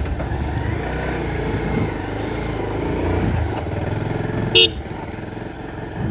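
Road vehicle's engine running steadily on the move, with one short horn beep about four and a half seconds in.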